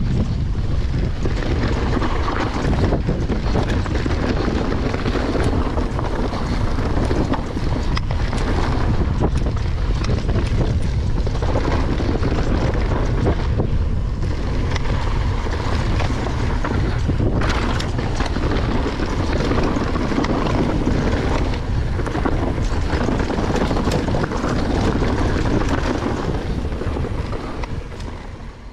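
Wind buffeting an action camera's microphone as a Nukeproof Mega mountain bike rolls down a rocky dirt trail, with tyre rumble and scattered clicks and rattles from stones and the bike. The sound fades out near the end.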